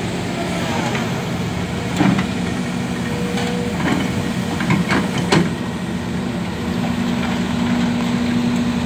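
Hidromek wheeled excavator's diesel engine running steadily, getting louder about six and a half seconds in, with a few sharp clanks between about two and five and a half seconds in as the arm and bucket work the earth.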